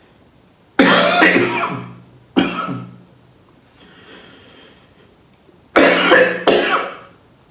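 A man coughing in two bouts: a longer cough and a short one about a second in, then two more close together about six seconds in.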